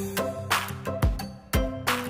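Background music with a steady beat: drum hits about twice a second under held instrumental notes.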